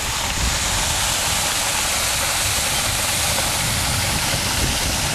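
Steady rushing of water from a small waterfall pouring into a river pool.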